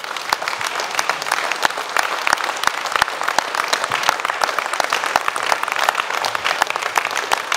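Crowd applauding: many hands clapping at once, at a steady level.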